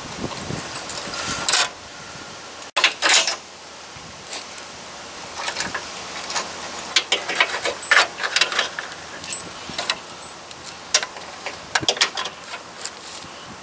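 Irregular metal clicks and clinks of a steel boat-trailer coupler latch and its locking pin being handled and fitted, with pliers on the metal, denser in the second half.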